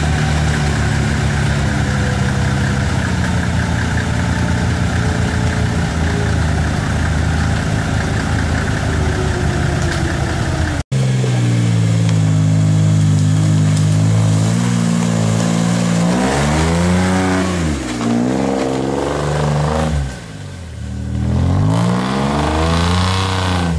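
Off-road buggy's engine pulling hard under load at fairly steady revs. After a cut, it revs up and down again and again as it crawls over obstacles, easing off briefly near the end before rising once more.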